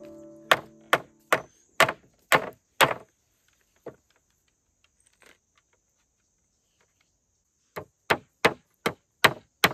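A blade chopping on wood in steady strokes, about two a second. Six strokes, a pause of several seconds, then the chopping starts again near the end, slightly faster.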